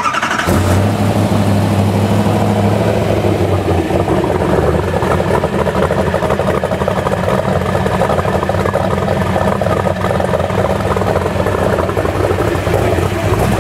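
Saleen S7 Twin Turbo's 7.0-litre twin-turbocharged V8 starting up: it catches at once and settles into a steady idle, with a deeper, stronger note for the first few seconds.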